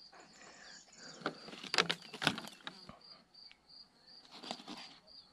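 Insect chirping in a steady high rhythm, about three chirps a second. A few sharp clicks and crackles of close handling cut in, loudest about two seconds in and once more near the end.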